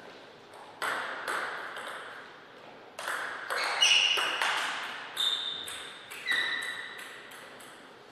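Celluloid-type table tennis ball clicking off paddles and the table in a short rally: a quick string of sharp clicks with short ringing tails. A few short high-pitched squeaks come in among them.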